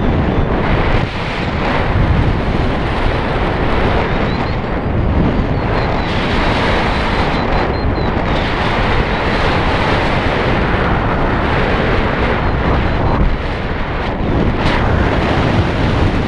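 Loud, steady wind buffeting the microphone during flight, a dense rushing noise heaviest in the low end.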